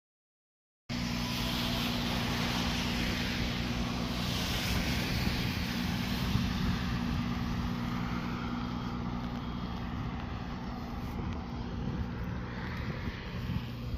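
Car driving: a steady engine hum with tyre and road noise. It cuts in after about a second of dead silence.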